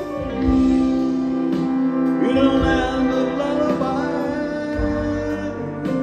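Live band with horns and strings playing a slow instrumental passage: sustained chords from guitar, piano, upright bass, horns and violins, a wavering lead line gliding above them, and occasional drum hits.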